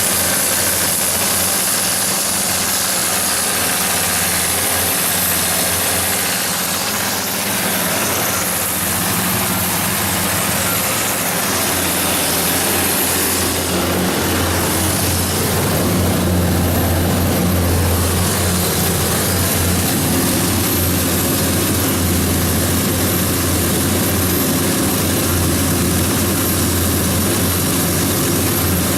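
SDMO 170 kW standby diesel generator set, its John Deere 6068HF150 six-cylinder diesel running steadily with a constant low hum.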